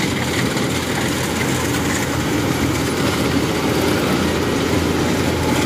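Rice combine harvester running at close range: a steady engine drone mixed with the noise of its cutting and threshing machinery.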